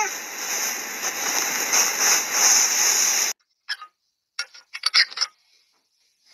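A steady hiss that cuts off abruptly about three seconds in, followed by a few sharp metallic clicks as fingers lever up the ring-pull tab on a pet food can.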